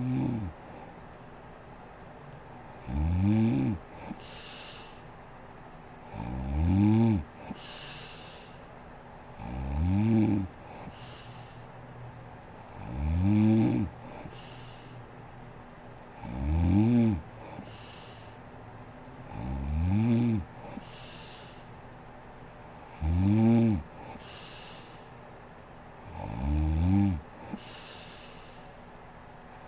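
A woman snoring steadily: a pitched snore about every three and a half seconds, each rising then falling in pitch, followed by a breathy hiss.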